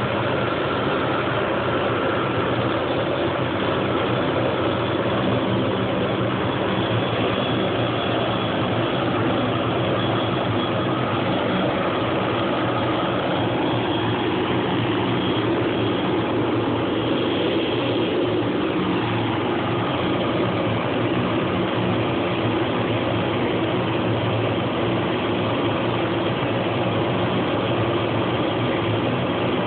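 1977 Hughes 369D helicopter running on the ground, its Allison 250 turboshaft engine and turning rotors making a steady, even sound with a faint high whine over it.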